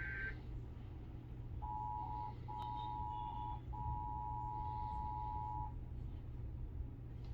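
Emergency Alert System attention signal: the steady two-tone EAS alert sounds for about four seconds, broken twice by short dropouts, just after the harsh buzz of the SAME digital header burst cuts off at the start. A low steady hum runs underneath.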